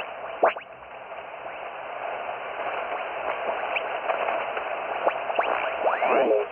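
Shortwave receiver tuned across a band: steady band noise and static with carrier whistles sweeping sharply up and down in pitch as the tuning dial moves past signals.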